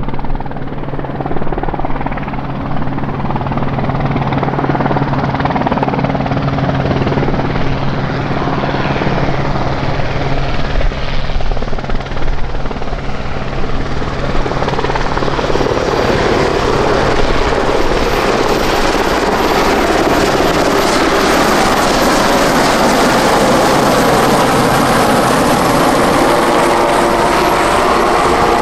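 Westland Sea King helicopter, its main rotor and twin turboshaft engines running as it flies in and comes down to a low hover. The sound grows fuller from about halfway through, with a high turbine whine joining in.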